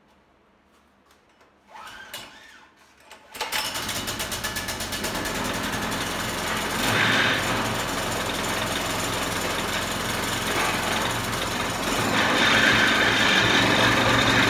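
Harbor Freight 6.5 horsepower single-cylinder engine being pull-started: a short crank around two seconds in, then it catches about three and a half seconds in and runs steadily. It gets louder about seven seconds in and again near the end.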